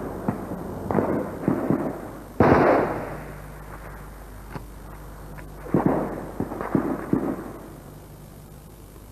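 Gunfire: irregular shots, each trailing off in an echo, the loudest about two and a half seconds in and another group of shots around six to seven seconds in.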